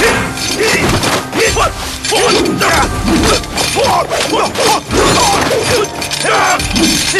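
Kung fu film fight soundtrack: a quick run of sharp strike and swish effects as a wooden pole and fists are swung and land, with short pitched cries sliding up and down between the hits.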